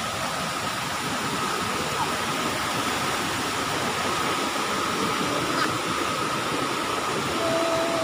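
Rushing water of a rocky stream cascading over boulders: a steady hiss, with a faint steady high note running under it.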